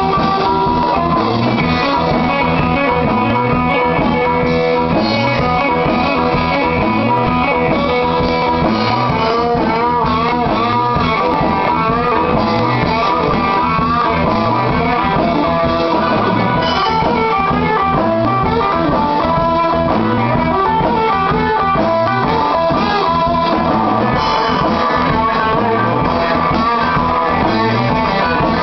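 Live blues band: a harmonica played into a cupped microphone, with wavering, bending notes over a strummed electric guitar.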